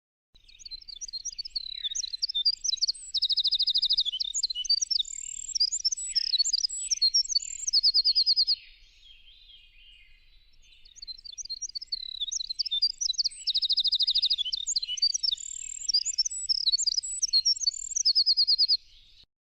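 A songbird singing two long, varied songs made of quick whistled notes and rapid trills, with a pause of about two seconds between them.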